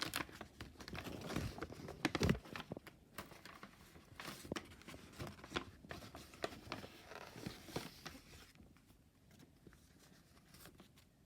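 A blind bag being torn open and unwrapped by hand: rustling, crinkling and tearing with many small clicks, busiest for the first several seconds and dying down near the end.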